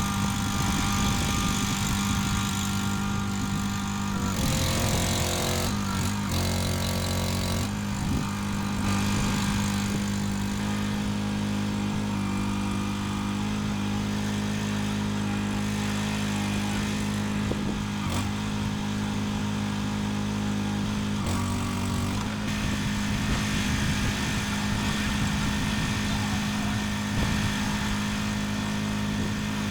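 An engine running steadily, starting abruptly, with its pitch shifting briefly a few times, as when a vehicle is driven.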